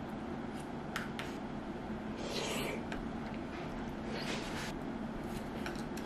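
Person eating rice and chicken breast with chopsticks from a plastic container: a few light clicks of the chopsticks on the container and two short breathy puffs through the lips, over a steady low room hum.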